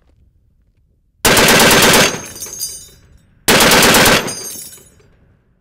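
Browning M2HB .50 BMG heavy machine gun firing two short full-auto bursts, each under a second long, about a second and a half apart. Echo trails off after each burst.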